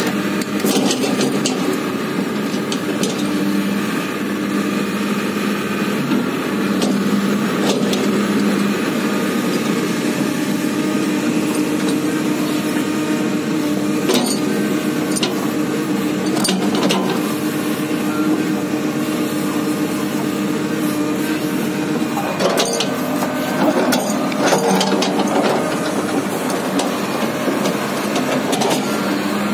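Komatsu PC300-8 excavator's six-cylinder diesel engine running steadily as the machine works, with a few sharp metal clanks and knocks midway and a cluster of them near the end.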